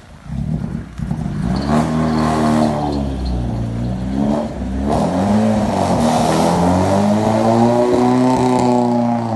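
Mitsubishi Galant Sigma's Sirius four-cylinder engine revving as the car pulls away: the pitch climbs, drops back once partway, then climbs again and holds high.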